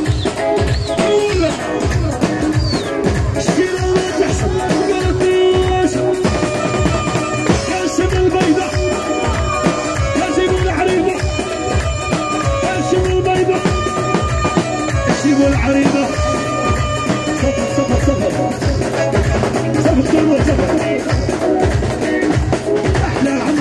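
Live rai band music: a steady drum beat under a melody that wanders in pitch.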